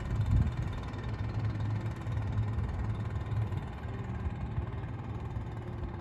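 A boat engine running steadily, a low drone with a faint steady whine above it.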